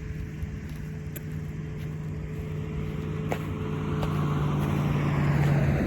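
A motor engine running with a steady low hum, growing louder toward the end as if approaching.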